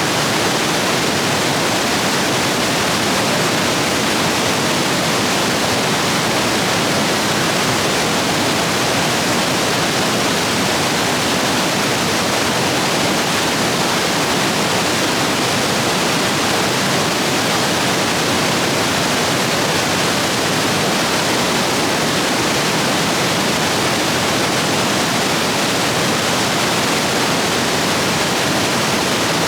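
Rushing rapids of a stream swollen by heavy rain: a loud, steady roar of white water.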